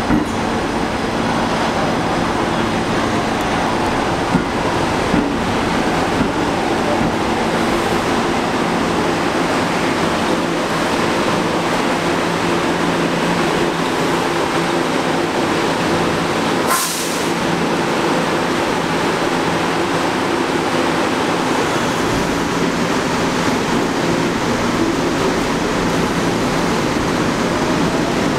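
Kawasaki R211A subway train moving slowly through a station, a steady rumble and hum from the train. A brief hiss comes partway through.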